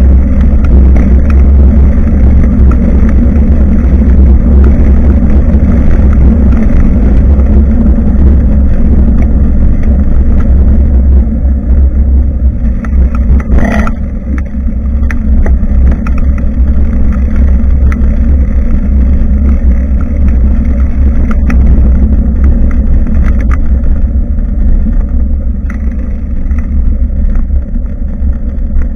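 Heavy wind buffeting and road rumble on the microphone of a rear-facing camera on a moving bicycle, loud and steady, with a single sharp knock about halfway through.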